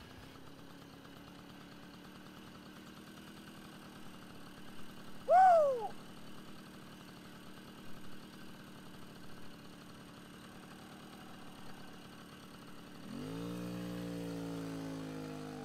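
Small moped engine idling with a steady low hum, then revving up and pulling away about thirteen seconds in. About five seconds in there is a brief, loud, high whoop that falls in pitch.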